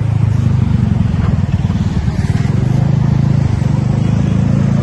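A motor vehicle's engine running close by: a loud, steady low rumble that swells up just as the sound begins.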